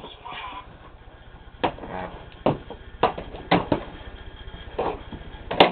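Irregular knocks and clacks, about six over a few seconds with the loudest near the end, from a toy car and stuffed bears being handled and moved about.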